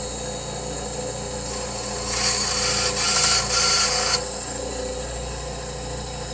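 A 9-inch Delta benchtop bandsaw running steadily with a hum. For about two seconds in the middle its blade cuts through a small piece of wood, a raspy cutting noise on top of the hum that stops abruptly.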